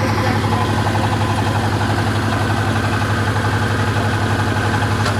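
Combine harvester's diesel engine running steadily, with a fast, even low pulsing.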